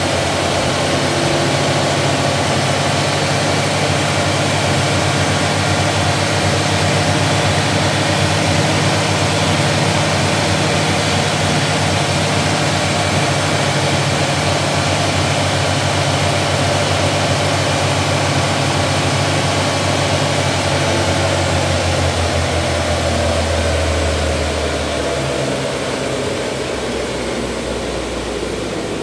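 Honda K20 2.0-litre four-cylinder engine, with an aftermarket header and K&N filter, running at a steady idle under a loud, even rushing noise. About three seconds before the end the engine's low hum stops and the rushing eases off.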